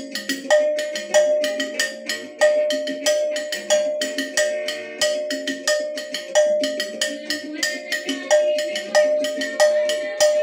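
Hand-held metal cowbell struck with a wooden drumstick in a steady beat, a clear ringing clang about every two-thirds of a second, with lighter taps between the main strokes and other music playing along.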